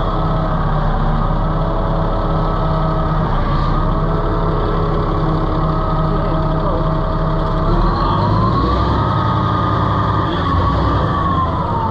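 Komatsu bulldozer's diesel engine running, its pitch rising and falling several times, most clearly about 8 seconds in.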